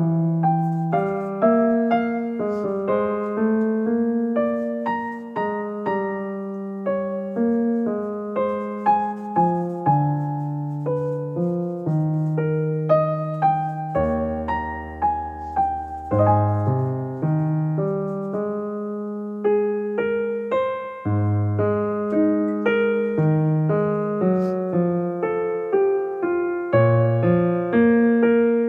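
Background piano music: single notes and chords struck one after another at an even pace, each fading away.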